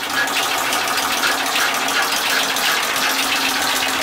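Rotary tablet press running while it compresses powder into slugs: a steady machine hum with a rapid, even clatter.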